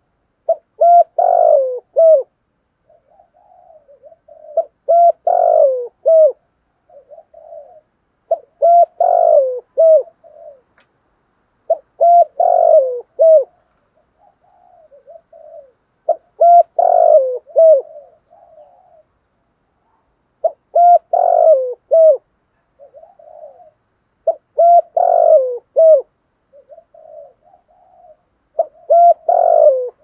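Spotted dove, a caged decoy bird, cooing its song: a rough phrase of coos ending in two short notes, repeated eight times about every four seconds, with softer coos between the phrases.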